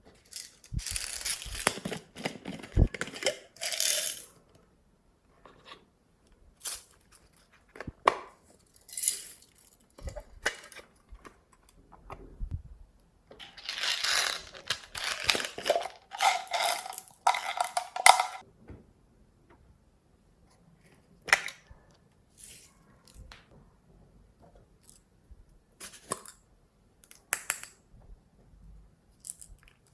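Glossy slime being kneaded and squished by hand, giving bursts of wet crackling and popping. The bursts are loudest near the start and again around the middle, with scattered single clicks and pops between them.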